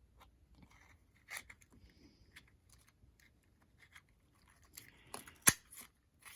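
Scattered small clicks and rustles of hands fitting a metal clasp to faux leather, with one sharp click about five and a half seconds in.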